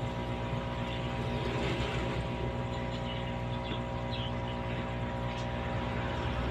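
Aquarium air pump humming steadily at one unchanging pitch, over an even hiss.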